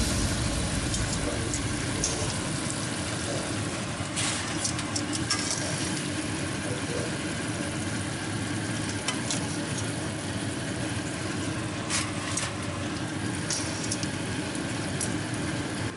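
Venison liver frying in bubbling pan juices in a frying pan, sizzling steadily, with a few sharp clicks of tongs against the pan.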